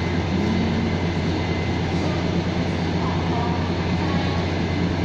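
Taiwan Railways diesel multiple unit idling at a platform, its diesel engines giving a steady low hum.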